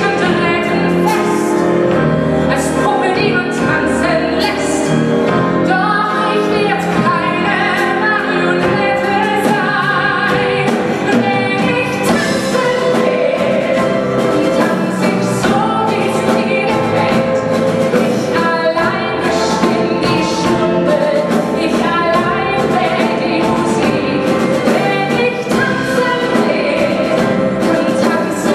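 A woman singing a musical-theatre song in German into a microphone, live, backed by a band with drums, electric guitar and piano.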